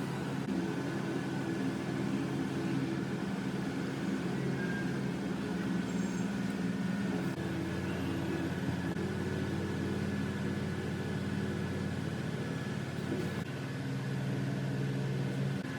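A machine running steadily with a low, even hum. Its sound changes about seven seconds in and changes again near the end.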